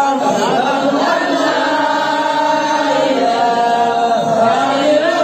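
Men's voices chanting together in Arabic, a Muslim devotional chant (dhikr) sung in long held notes that glide slowly up and down without a break.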